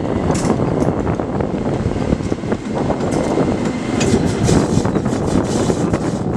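Vy Rc6 electric locomotive running light past on the next track, its wheels clattering over the rail joints and points. A run of sharp clicks comes as it goes by, about three to six seconds in.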